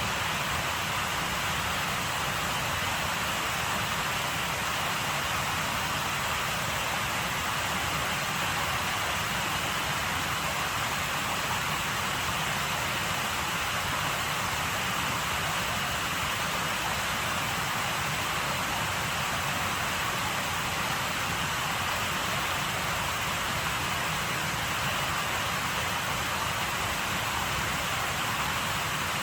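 Steady, unbroken rush of water, an even hiss with no separate drops, splashes or other events.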